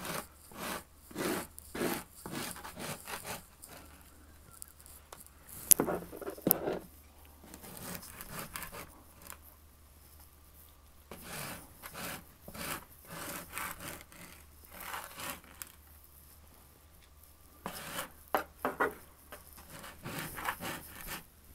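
Putty knife scraping glued ground-foam scenery off a homosote layout base, in irregular groups of short rasping strokes with pauses between them. There is one sharp tap about six seconds in.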